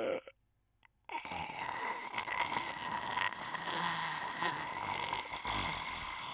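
A person snoring: one long, rasping drawn-out snore that starts suddenly about a second in, after a moment of silence.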